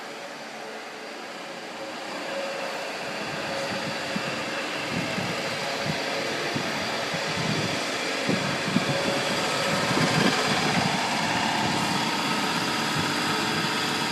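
Construction-site machinery running with a steady mechanical drone that grows louder over the first ten seconds, with a low rumble setting in about four seconds in.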